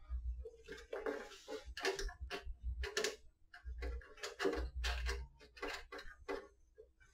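Irregular metallic clicks and taps, about two or three a second, as a mounting bracket's bolts and square nuts are fitted and hand-tightened against a metal conveyor frame.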